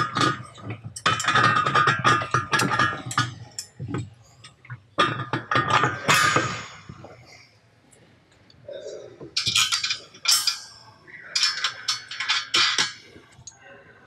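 Bolts, washers and nuts clinking and clanking against a steel bracket as they are fitted and hand-tightened, several knocks followed by a brief metallic ring. It goes quiet for a couple of seconds a little past the middle.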